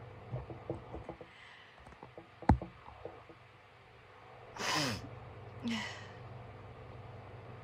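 A person with an unblown, runny nose breathing after a sneeze: small sniffs and nasal clicks, a sharp tap about two and a half seconds in, then a breathy sigh with a falling voice and a shorter breath soon after.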